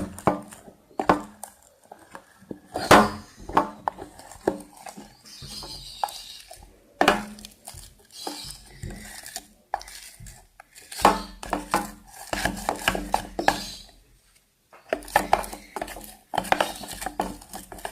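A stirrer knocking and scraping against a small container as slime is stirred, in irregular clinks and taps with short pauses.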